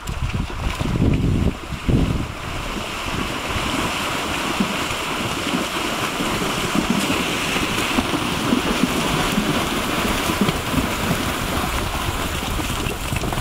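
Rushing water of a swollen stream as a herd of horses wades and splashes across it. Wind buffets the microphone in gusts over the first two seconds.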